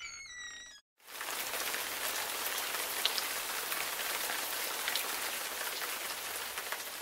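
Water pouring from a watering can and splashing steadily like rain, starting about a second in. It is preceded by a brief high pitched, wavering tone.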